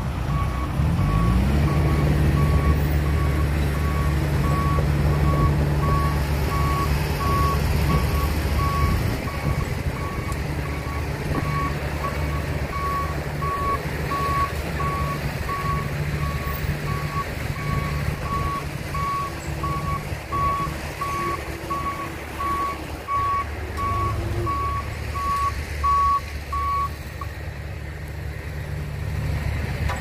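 Reversing alarm of a heavy construction vehicle beeping at a steady, even rate and stopping near the end. Under it a heavy engine revs up about a second in, runs hard for several seconds, then settles lower.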